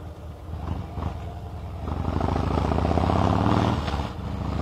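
Harley-Davidson V-twin motorcycle engine running under way; about two seconds in the throttle opens and the engine pulls louder, then it drops off briefly near the end before picking up again.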